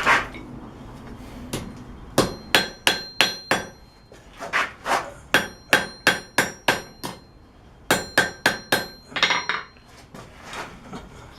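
Hand hammer tapping a small piece of forged steel: three runs of quick, light blows, each with a bright metallic ring.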